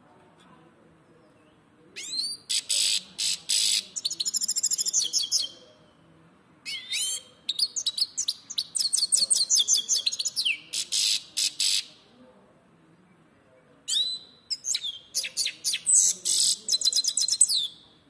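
Goldfinch singing: three long phrases of rapid, high twittering mixed with trills and gliding whistles, with short pauses between them.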